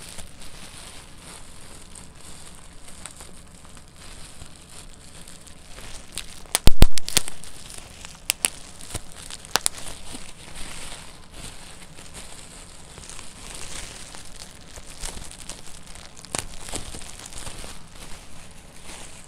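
Bubble wrap squeezed and twisted by hand: steady plastic crinkling with sharp pops of bursting bubbles, a loud cluster of pops about a third of the way in and single scattered pops after.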